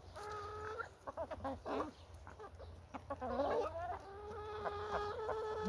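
Chickens calling: a few drawn-out, pitched calls, the last one held steady for over two seconds near the end.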